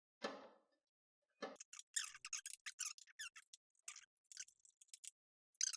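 Motherboard screws being driven into the case standoffs with a screwdriver: a knock near the start and another about a second and a half in, then a run of quick, small clicks and scrapes, several a second, that stops about five seconds in.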